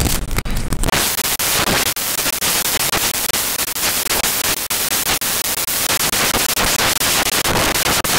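Loud, steady crackling static noise, dense with fine ticks, with no speech or music over it.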